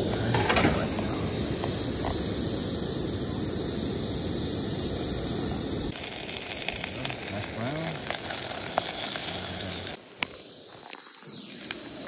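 Liquid-fuel camp stove burner hissing steadily under a pot of boiling water. The hiss changes abruptly about six seconds in and drops quieter near the end.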